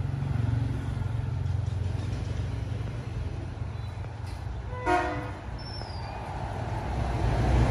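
A motorbike engine running with a low steady rumble that grows louder near the end, and one short horn beep about five seconds in.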